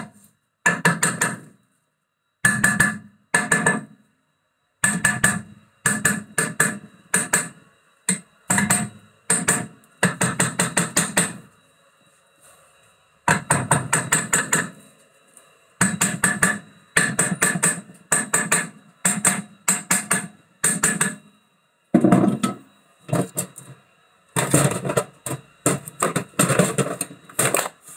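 Hammer blows on a rusty brake disc and hub assembly held in a vise: runs of several quick strikes with short pauses between them, the metal ringing after the blows.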